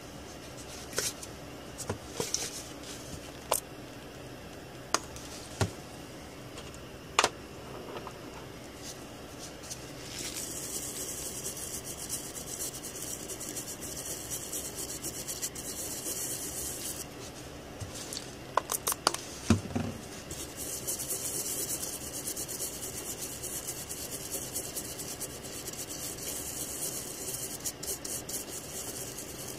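A bristle brush scrubbing alcohol across the solder-ball side of a reballed BGA graphics chip to clean off flux residue. The scrubbing comes in two long scratchy spells, the first starting about a third of the way in. A few sharp clicks sound before it, and a short cluster of knocks falls between the two spells.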